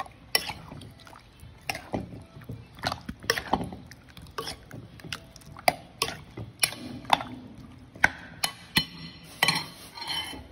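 Raw chicken drumsticks being mixed with beaten egg and seasoning in a glass bowl: wet squelching, with a dozen or so irregular clinks of a metal spoon against the glass.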